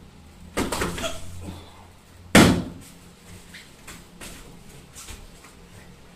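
Bodies hitting foam mats during sambo grappling: a thud about half a second in, then a much louder, heavier thud a couple of seconds in, followed by a few light knocks on the mat.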